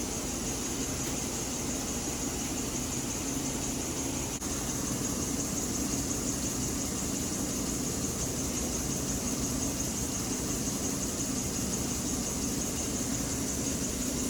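A vehicle running steadily, with a low engine and road drone under a constant hiss, with a brief dip about four and a half seconds in.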